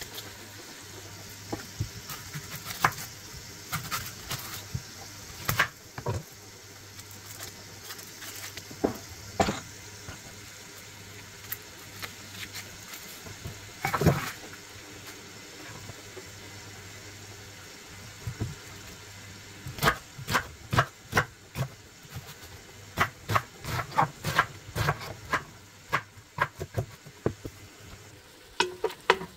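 Onion being peeled and cut with a chef's knife on a wooden cutting board: scattered rustles and light knocks, one heavier thud of the blade going through an onion about halfway, then a quick run of knife chops on the board, two to three a second. A steady low hum runs underneath.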